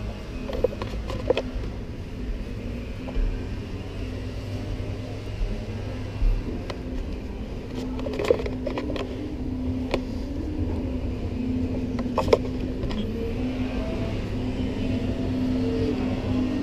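A steady low mechanical hum, with scattered short knocks and clicks over it.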